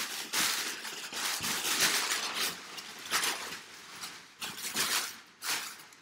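Brown kraft packing paper crinkling and rustling in a run of irregular crackling bursts as hands dig through it and pull crumpled sheets out of a cardboard box.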